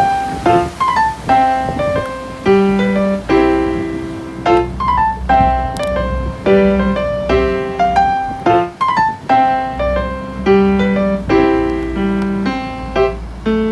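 Background music: a keyboard melody of short, bright piano-like notes in a repeating pattern.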